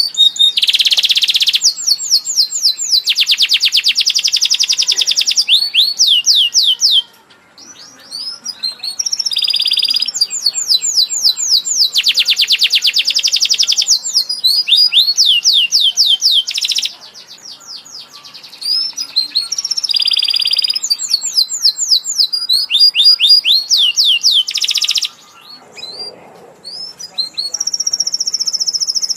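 Domestic canary singing loudly in long, fast trills of rapid repeated high notes, broken by brief pauses about a quarter, half and five-sixths of the way through.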